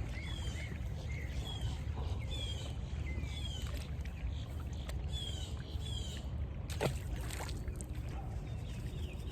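Small birds chirping: short notes repeating every half second or so, some falling in pitch, over a steady low rumble, with a single knock about seven seconds in.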